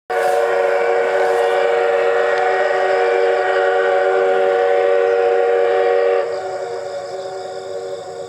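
Steam locomotive whistle, C58 363 of the Paleo Express: one long blast of several steady pitches for about six seconds. The blast then cuts off and its echo fades away.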